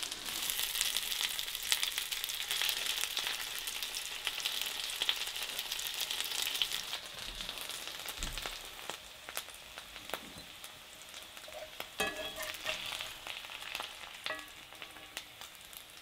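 Potatoes sizzling and crackling as they fry in butter and olive oil in a cast-iron skillet. The sizzle fades over the second half. Near the end come a few clinks of a spatula and fork against the pan and a plate.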